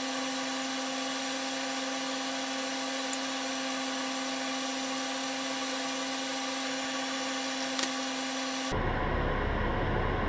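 Batter-coated eggplant pieces sizzling in hot oil in a frying pan, with a steady hum underneath and a couple of light clicks from chopsticks near the end. The sound cuts off abruptly shortly before the end.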